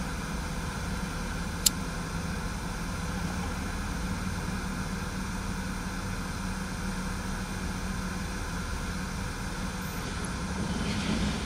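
Vehicle engine idling, a steady low hum, with a single sharp click about two seconds in.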